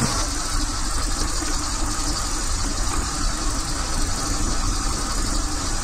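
BMW M50/M52-family inline-six running at a steady idle on individual throttle bodies while the throttles are being balanced for even airflow.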